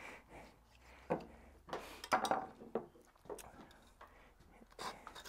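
A few scattered light knocks and clicks of butcher's tools on a wooden cutting board, as a knife is laid down and a bow-frame bone saw is set against the shank.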